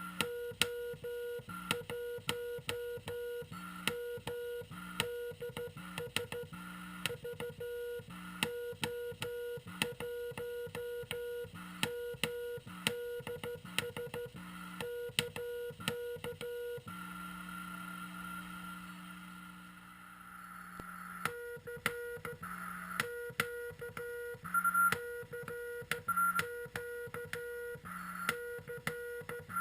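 Morse code on the 40 m band heard from a Frog Sound QRP CW transceiver: a tone keyed on and off in dots and dashes, with sharp clicks at the keying. Just past the middle the keying stops for a few seconds, leaving a steady hum and hiss, then it resumes.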